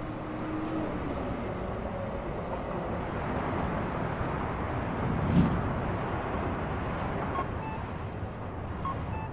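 Downtown city traffic: a steady wash of vehicle noise, with a single low thump about five seconds in.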